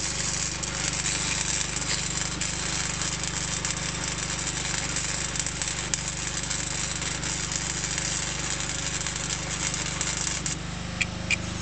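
Electric arc welding: a steady, dense crackle with a low hum underneath, cutting off suddenly near the end.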